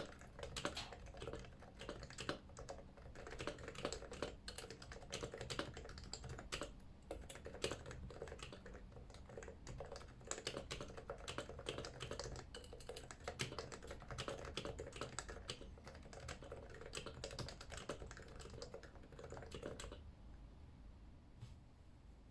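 Typing on a Yui660c wedge-bottom keyboard with stock 45 g Topre switches and stock keycaps: a quick, continuous run of keystrokes that stops about two seconds before the end, leaving only a few single key presses.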